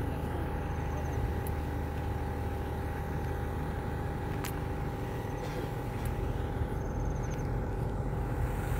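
Steady hum of a running motor over a low rumble, the rumble growing a little louder about six seconds in.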